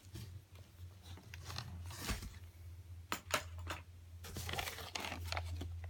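Plastic model-train packaging being handled: irregular clicks, taps and crinkling of the clear plastic case and cardboard, over a steady low electrical hum.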